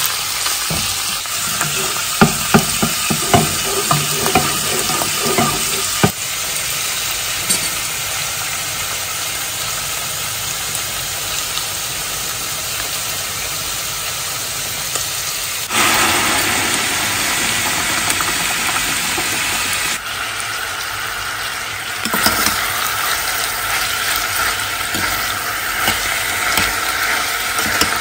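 Ground meat and onions sizzling in a frying pan, with a spatula scraping and clicking against the pan in the first few seconds. About halfway through, a louder rush as water is poured into a pot of stew. Near the end, stirring clicks against a pot.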